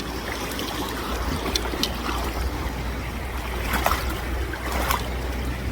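Campbell River water rushing steadily, with a steady low rumble under it and a few brief clicks.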